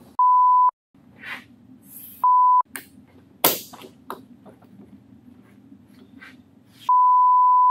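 Three censor bleeps, steady single-pitch beep tones covering swearing: a short one at the start, another about two seconds in, and a longer one near the end. Between them, faint shuffling and a sharp click about three and a half seconds in.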